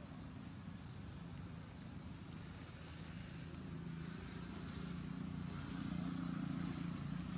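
Low, steady hum of a distant motor engine, slowly growing louder.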